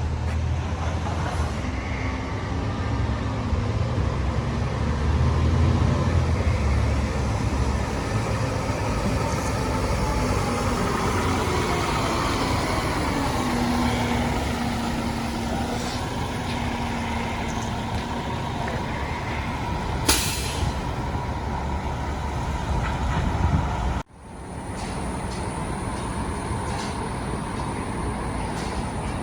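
Heavy diesel engine of a fire truck rumbling close by, with a short hiss of air brakes about two-thirds of the way through. Near the end the sound cuts abruptly to a steadier, quieter traffic hum.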